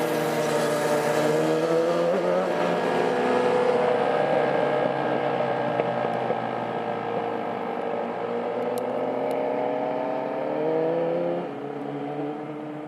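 American Signal T-128 warning siren sounding up close: a loud, steady chord of several tones that wavers slightly in pitch. Its level falls away about a second before the end.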